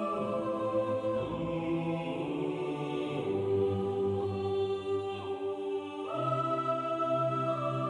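Background music of sustained, choir-like chords that change every couple of seconds.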